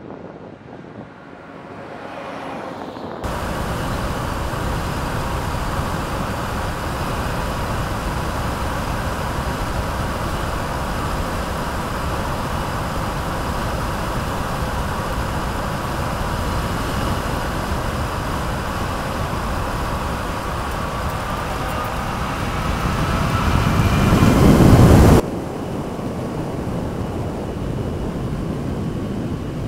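Mercedes-Benz GenH2 hydrogen fuel-cell truck driving: a steady rush of tyre and wind noise with a faint high whine, starting suddenly about three seconds in. The rush swells loud as the truck passes close, then cuts off abruptly near the end.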